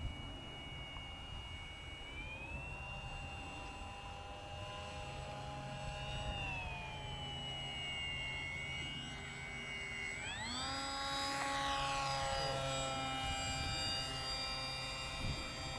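Radio-controlled model airplane's motor and propeller whining in flight. The pitch rises about two seconds in and sags a few seconds later. It jumps sharply about two-thirds of the way through as the throttle is opened, and is loudest there before slowly falling again.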